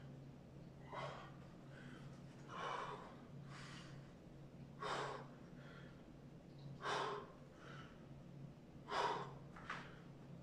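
A man breathing hard during push-ups: short, forceful breaths puffed out about every two seconds, the loudest near the end. A faint steady low hum sits underneath.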